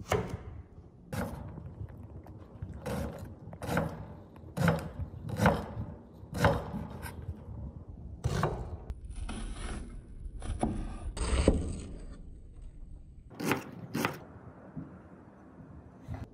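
Kitchen knife cutting vegetables on a wooden cutting board: irregular sharp strokes, roughly one a second, with scraping between them.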